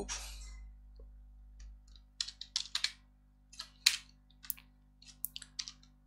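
Computer keyboard keys clicking as a short terminal command is typed: a run of separate keystrokes starting about two seconds in.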